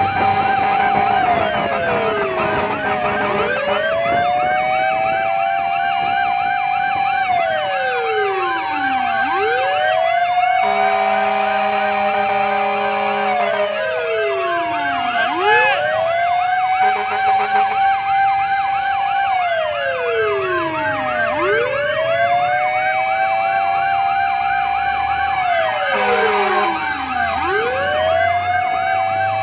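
Fire engine sirens sounding on the move: a slow wail that falls and rises about every six seconds over a fast warbling yelp. A flat, steady horn blast sounds for a couple of seconds about a third of the way in, then shorter ones around the middle and near the end.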